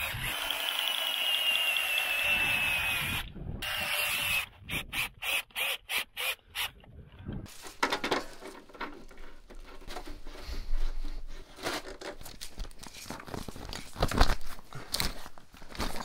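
Cordless drill whining steadily as it drives an anchor into the ice, then stuttering in short on-off bursts. Later come scattered clicks and rubbing of a brass quick-connect propane fitting being pushed onto a portable heater.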